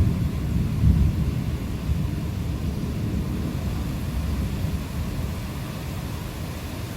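Thunder rumbling in a rainstorm: a deep roll that swells about a second in and then slowly dies away, over a faint steady hiss of rain.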